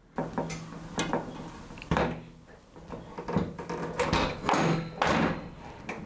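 Panel radiator being lifted and hooked onto its wall brackets: a series of irregular knocks and clunks as its metal rear brackets meet the wall brackets.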